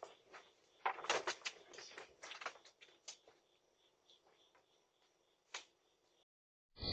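Faint, irregular clicks and rustles picked up by a doorbell camera's microphone, mostly in the first half, with a short louder burst right at the end.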